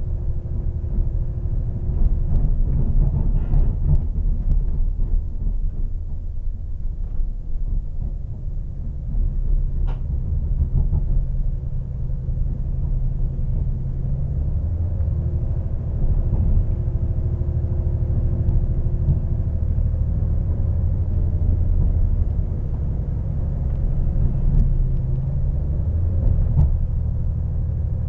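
Passenger train running, heard from inside the carriage: a steady low rumble with a droning note that shifts in pitch about halfway through.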